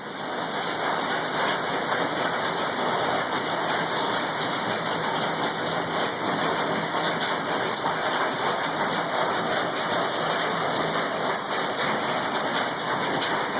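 Heavy rain beating steadily on a tin roof, heard from underneath it.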